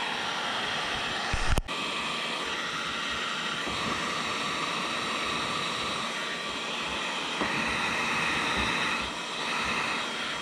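Electric heat gun running steadily, its fan blowing hot air onto the kayak's plastic hull to melt a plastic welding rod into the crack. A brief knock about a second and a half in.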